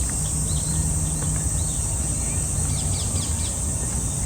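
Steady high-pitched drone of insects in summer trees, with short bird chirps scattered through it.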